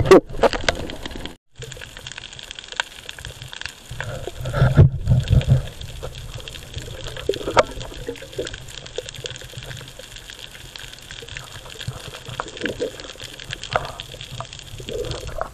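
Underwater water noise picked up through an action camera's housing: a steady hiss with scattered clicks and knocks. A louder rush of water comes about five seconds in.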